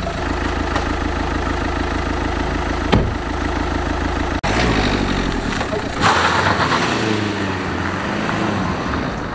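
A Renault Clio's engine runs at idle with a single knock about three seconds in. The car then pulls away, the engine note rising as it accelerates, with a burst of tyre noise on the dirt road as it moves off.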